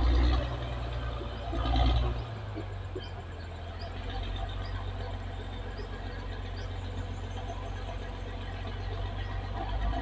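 Caterpillar D6R XL bulldozer's diesel engine running under load, swelling louder twice in the first two seconds, then settling to a steady, lower drone. Faint short high chirps sound now and then over it.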